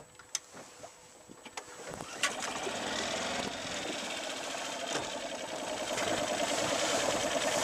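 A small motor starts about two seconds in and then runs steadily with a fast, fine whirr, growing slowly louder. A few light clicks come before it.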